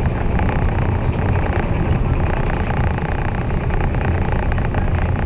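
Steady running noise inside a 485-series limited express electric train: a low rumble of wheels on the rails, with a faint steady hum above it.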